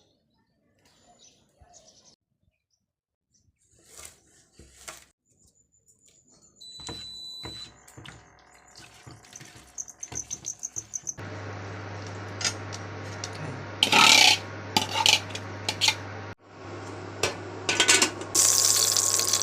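Kitchen utensils and pots clinking and knocking. About halfway through a steady low hum sets in, and near the end a tap starts running.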